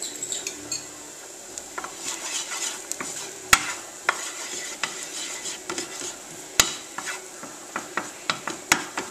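Wooden spoon stirring and scraping minced ginger around a nonstick frying pan, with a light sizzle of the ginger sautéing. The spoon clicks and knocks against the pan many times, loudest about three and a half seconds in and again near seven seconds.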